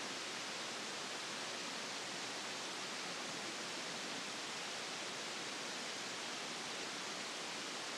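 Steady, even hiss with nothing else heard: the recording's own noise floor, brought up in a quiet room.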